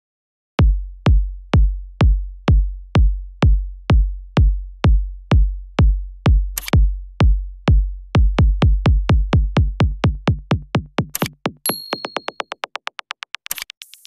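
Electronic backing music: a deep drum-machine kick beating about twice a second, speeding up into a fast roll from about eight seconds in, with a few sharp high hits and a short high tone near the end.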